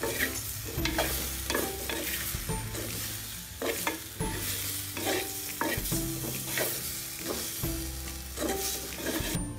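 Manioc pieces frying in coconut oil in a clay pot, sizzling, while a spatula stirs them with repeated scrapes and knocks against the pot. The sizzling drops away just before the end.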